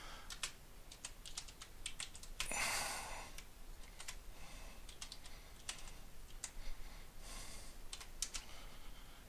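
Slow, irregular keystrokes on a computer keyboard as a line of BASIC is typed in, with a short hiss of noise about two and a half seconds in.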